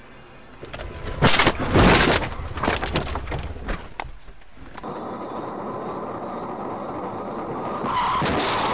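Car crash heard through a dashboard camera: a cluster of loud crashing impacts about a second in, followed by rattling knocks as the camera is thrown about. Then a steady rushing vehicle noise that grows louder near the end.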